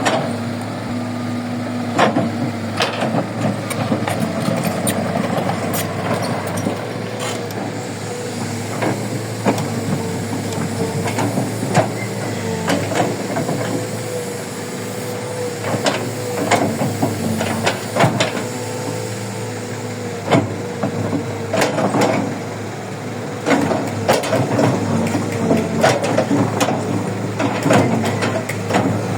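Heavy construction machinery at work, a Kobelco 135 excavator with its diesel engine running steadily, with frequent sharp clanks and knocks throughout.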